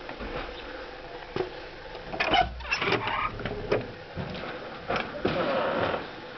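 A wooden door being unlocked and opened: the lock and handle rattle and click about two seconds in, followed by knocks and scuffs as the door swings open.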